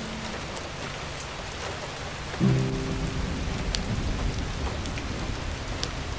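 Fireplace fire crackling: a steady hiss with scattered sharp pops. A soft, slow music chord comes in about two and a half seconds in and rings on.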